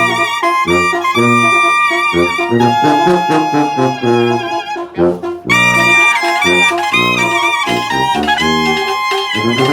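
Sinaloan banda playing live: brass and wind instruments carry an instrumental melody over low, rhythmic bass notes, with a short break about halfway through.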